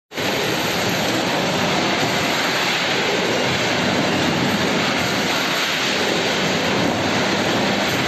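Snack-processing line running: mesh-belt and vibrating conveyors and other food-packing machinery making a loud, steady mechanical noise with no change.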